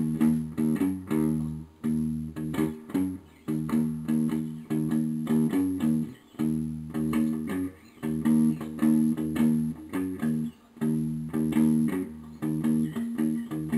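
Background music led by a plucked guitar with a bass line, playing short notes in a steady repeating pattern.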